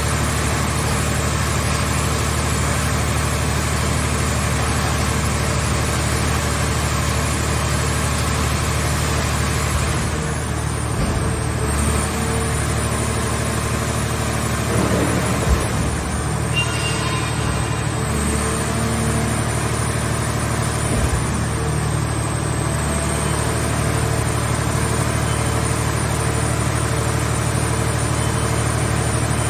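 Hydraulic car-shell baler's power unit running steadily, an engine-like hum that shifts slightly about ten seconds in. A few short thuds come midway and again later.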